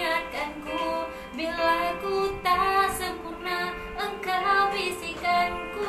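A young woman singing a Malay pop song solo into a handheld microphone, holding notes and sliding between them. The singing is off-key and strays from the song's melody.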